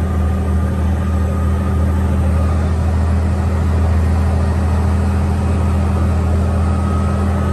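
Scania truck's diesel engine running steadily at an easy, unforced pace, heard from inside the cab as a loud, even low drone. A faint higher whine comes in near the end.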